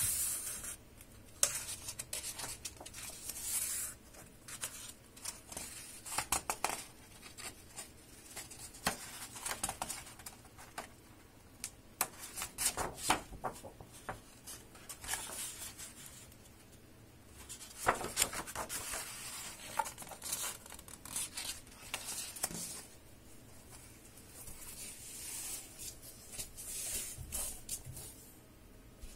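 Paper pages of a large hardcover book being turned and smoothed by hand: dry rustles and slides in irregular spells, with small taps, as the book is leafed through and then closed and handled.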